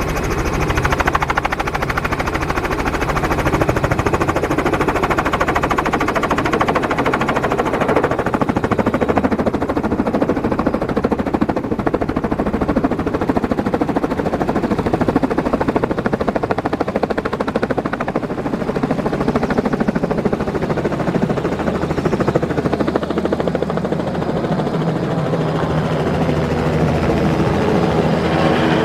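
Light two-blade helicopter running with its rotor turning at speed, a steady fast blade chop over engine noise. In the later part it lifts off the pad and passes overhead.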